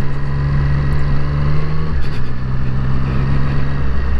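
Triumph motorcycle engine pulling hard through an overtake, heard over wind rush on a helmet microphone. Its steady note steps down about two seconds in, then shifts again near the end.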